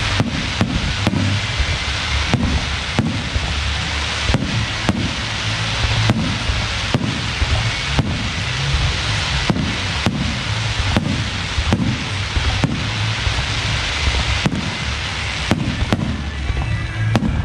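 Fireworks display: aerial shells bursting in quick succession, about two bangs a second, over a continuous crackling hiss with low booming rumbles.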